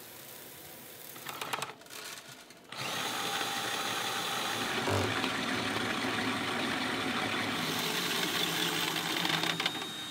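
Malted grain rattling into a metal grain-mill hopper, then about three seconds in a cordless drill starts and runs steadily, turning the mill's rollers to crush the grain for brewing; it eases off near the end.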